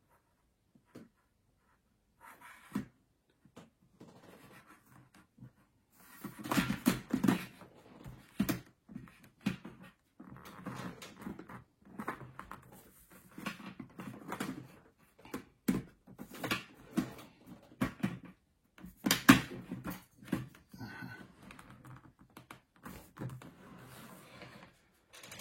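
Hands handling a plastic motorcycle helmet visor against the helmet shell: irregular clicks, taps and rubbing, sparse at first and busier from about six seconds in.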